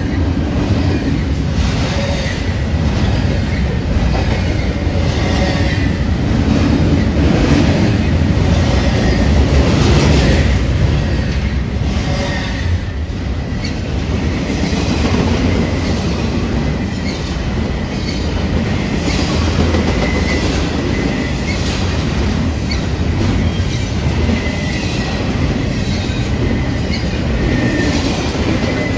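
Train cars rolling past with a steady deep rumble and a long run of clicks as the wheels cross the rail joints. Faint high wheel squeal comes and goes.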